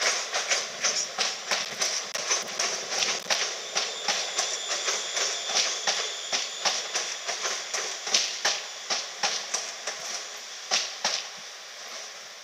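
Class 350 electric multiple unit's wheels clicking over rail joints as it rolls slowly along the platform. The clicks come every third of a second or so, space out and stop about eleven seconds in. A faint high whine runs for a couple of seconds midway.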